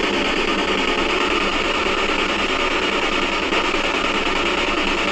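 Steady, loud radio static from a spirit box sweeping through stations, with no clear words coming through.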